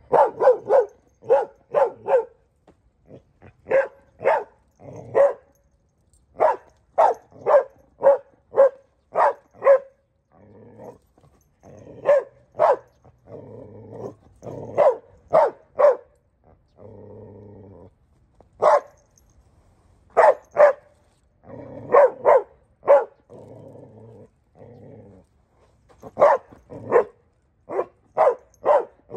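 Adolescent Belgian Malinois barking repeatedly in quick runs of sharp barks, with low growling between some runs. This is the barking of a fearful young dog caught between wanting the bite pillow and wariness of the handler holding it.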